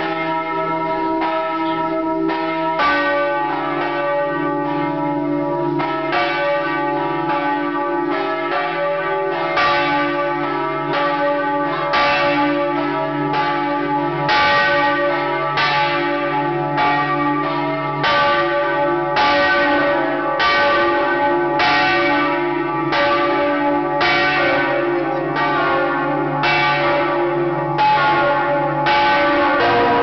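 Large bronze church bells of St Mark's Campanile swinging and ringing very loudly at close range in the belfry, a fresh strike about once a second with the tones of several bells overlapping and ringing on between strikes.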